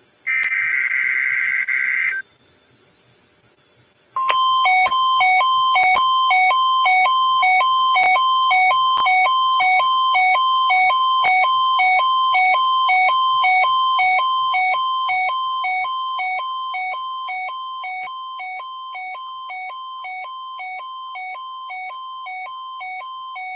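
Emergency Alert System broadcast tones: about two seconds of harsh warbling digital header data, a gap of about two seconds, then a loud pulsing two-note alert tone that alternates high and low in a fast, even rhythm, fading down after about 14 seconds.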